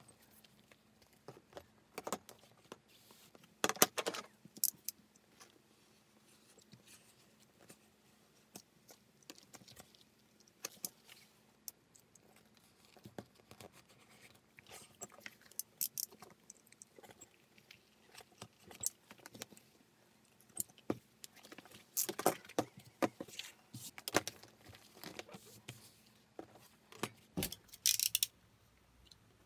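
A craft knife cutting crocodile leather along a steel ruler in short, scratchy strokes, with scattered clicks and taps as the leather, pattern paper and ruler are handled. The strokes come thickest over the last several seconds.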